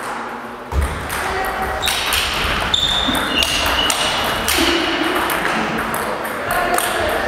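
Table tennis ball clicking back and forth in a doubles rally, struck by the bats and bouncing on the table, with a couple of short high squeaks from shoes on the wooden hall floor.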